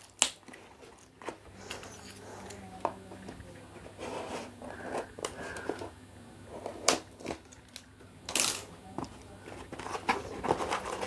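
Small cardboard box being handled and its flaps pulled open by hand: irregular rustling and scraping of cardboard with a few sharp knocks and snaps.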